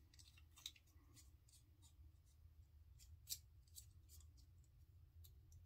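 Faint, scattered clicks and ticks of a metal adjustable safety razor being handled and its adjuster turned, over near silence; the clearest click comes a little past three seconds in.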